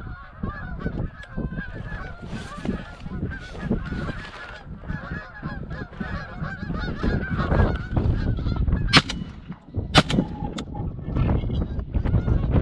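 A flock of geese honking, with many calls overlapping continuously. About three-quarters of the way through, two sharp cracks come about a second apart.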